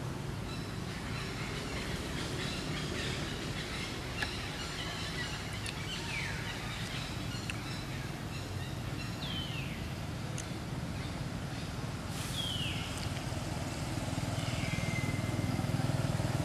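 Outdoor ambience: a steady low rumble, with four short, high calls that fall in pitch, coming about three seconds apart, and a single sharp tick about four seconds in.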